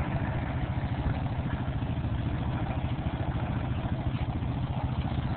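An engine idling steadily close by, with a rapid, even low pulsing.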